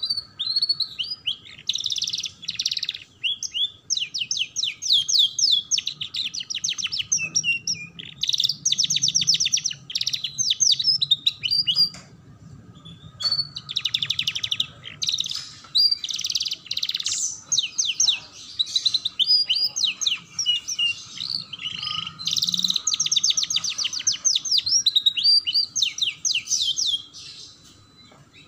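Domestic canary singing a long, fast song of rapid trills and clear whistled notes, breaking off briefly about twelve seconds in and again near the end.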